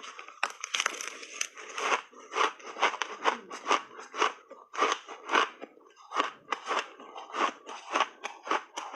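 A person chewing a mouthful of crunchy frozen shaved ice, with steady crunches at about two to three a second.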